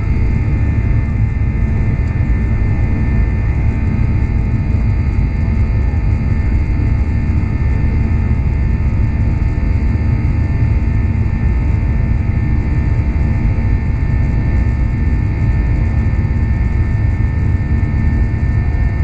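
Boeing 737-800's CFM56 jet engines at climb power just after take-off, heard from inside the cabin over the wing: a steady loud rumble with a constant high whine.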